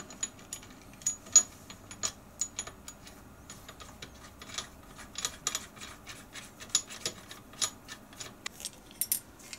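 Irregular light metallic clicks and ticks of a Vertex machine vise's steel jaw being fitted and its screws turned by hand, as the jaw is moved to the back side of the vise. The sharpest click comes about a second and a half in.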